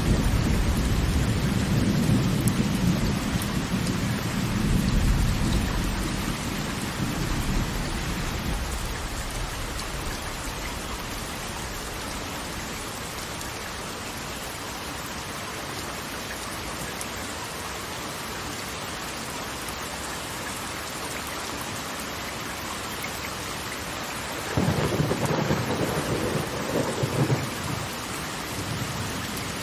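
Steady hiss of rain with rolls of thunder: a deep rumble fades away over the first several seconds, and another breaks in suddenly near the end and rolls for about three seconds.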